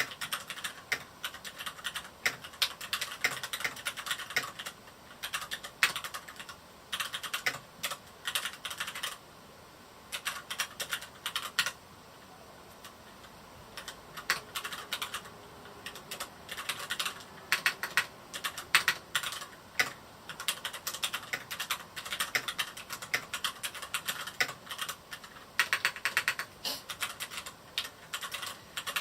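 Typing on a Varmilo Miya68 mechanical keyboard with Cherry MX Red linear switches: quick runs of keystrokes clattering, broken by a couple of short pauses.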